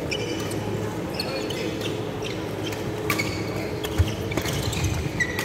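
Badminton rally in a sports hall: sneakers squeaking briefly on the wooden court floor and rackets striking the shuttlecock, with the sharpest hit about four seconds in.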